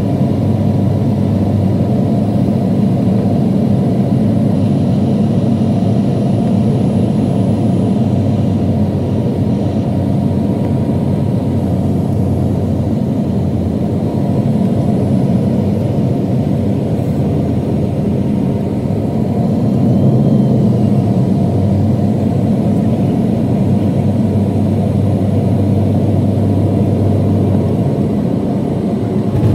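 Airliner cabin noise on final approach: a steady low rumble of the jet engines and rushing air heard from inside the cabin.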